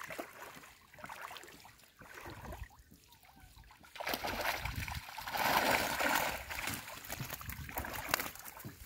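Water splashing and draining off a mesh fishing keepnet as it is gathered and lifted out of shallow lake water. Small splashes at first, then from about four seconds in a steady rush of water streaming through the mesh, loudest a little past the middle.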